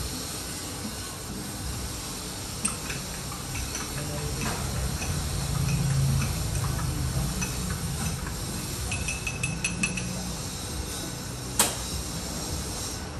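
Small clinks and taps of cups and tools being handled at an espresso bar over a steady low hum, with a quick run of light ticks about three quarters of the way in and one sharp knock near the end.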